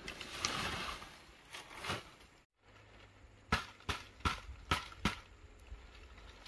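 Dry palm leaves rustling as they are handled, then about five sharp, dry crackles roughly 0.4 s apart as a bundle of dried palm fronds is worked by hand.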